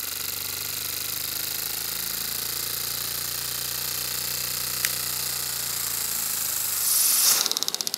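Lego vacuum engine (one cylinder with two opposed pistons) running on vacuum-cleaner suction: a fast, steady clatter over the hiss of drawn air. About seven seconds in there is a brief louder rush of air, then the clatter slows into separate clicks that die away as the engine coasts down.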